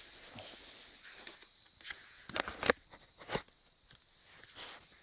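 A few quiet footsteps and scuffs on a concrete garage floor, mixed with knocks from the phone being handled; the sharpest steps or knocks come in a short cluster around the middle.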